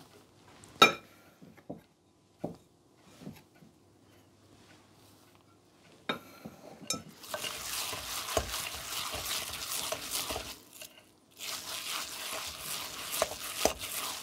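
A metal measuring cup knocks a few times against a ceramic mixing bowl as flour is tipped in, the sharpest knock about a second in. Then, from about seven seconds in, sticky wholemeal bread dough is beaten by hand in the bowl: a dense wet slapping and rubbing in two long spells with a short break between.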